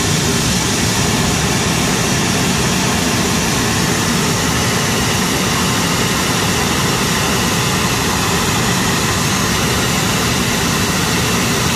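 Embraer 195's No. 2 turbofan, a GE CF34-10E, running steadily at ground idle after its start, a loud, even jet noise with no rise or fall.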